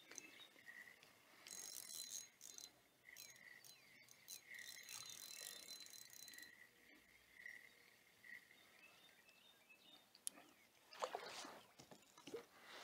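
Near silence, with a fishing reel faintly cranked in short bursts, a thin whine, as a hooked bass is reeled in. A few short knocks and splashes come near the end as the landing net goes into the water.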